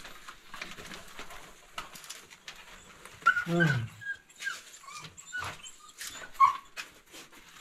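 A dog whining and yelping in short cries inside a rock cave, one longer cry sliding down in pitch about three and a half seconds in, as it picks up the scent of rats; faint clicks and scuffs of movement on rock around it.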